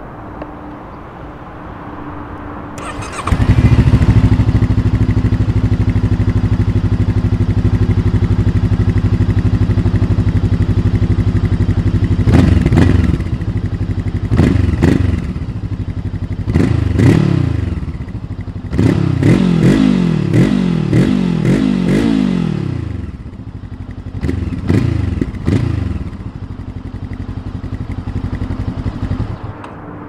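Voge 525 ACX motorcycle's parallel-twin engine started about three seconds in, then idling. It is revved in throttle blips, a quick run of several in the middle, and settles back to idle.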